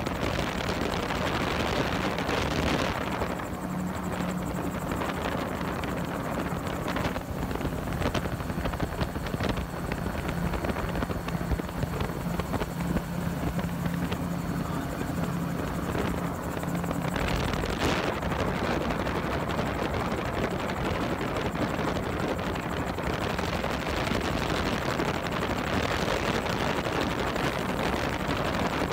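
Gyrocopter in flight, heard from on board: the steady drone of its engine and propeller mixed with rushing air noise. A low hum stands out for several seconds in the middle.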